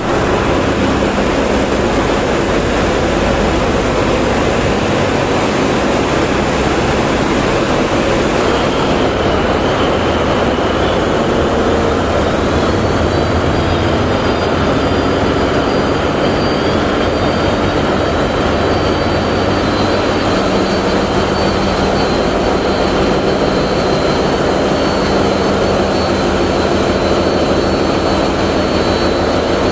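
Tugboat's diesel engines running steadily in the enclosed engine room, a loud continuous drone, with a faint high whine joining about twelve seconds in.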